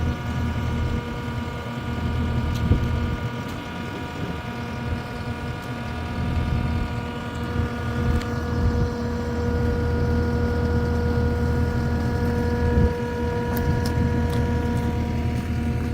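A large engine idling steadily, with a few brief clicks over it.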